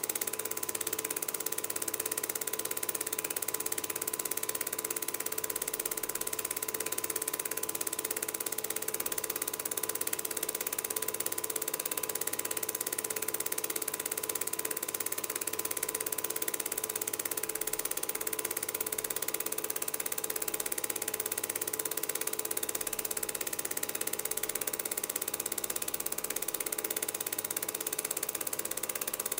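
Film projector running steadily during the transfer of a silent home movie: an even mechanical whirr with hiss and a constant hum, with no other sounds.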